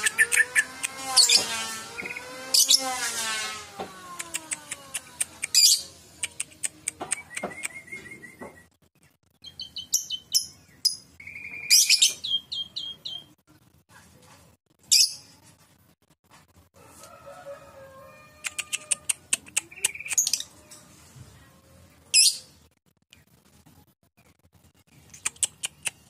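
Caged lovebird and starling (jalak) calling back and forth: trains of rapid chirps and short shrill calls, with a wavering warbled phrase in the first few seconds.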